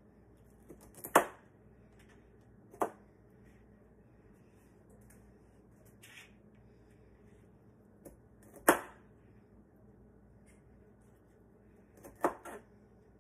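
Utility knife chopping through broccoli stalks, each cut ending in a sharp knock of the blade: four clear chops spaced a few seconds apart, the third the loudest, the last a quick double, with a few fainter cuts between.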